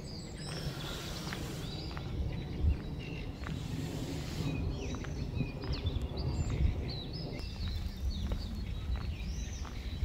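Outdoor ambience: small birds chirping repeatedly over a steady low rumble, with a few faint scattered clicks.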